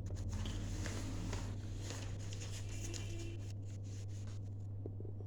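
A steady low hum with faint scattered rustles and clicks, such as paper or pen handling, in a small room.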